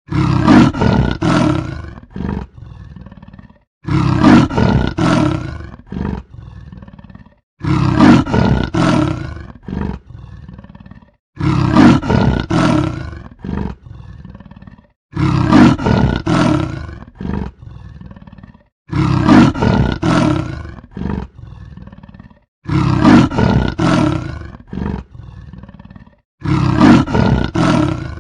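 Leopard roaring: a group of several loud calls followed by fainter ones, the same pattern repeating about every four seconds as a loop.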